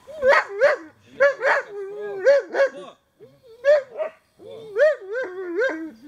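Dog whining and yelping in a quick run of short, high, rising-and-falling cries, several a second, with a brief break about three seconds in.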